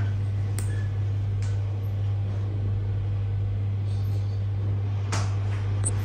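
A steady low hum from operating-room equipment, with a few faint clicks of small surgical instruments during stitching.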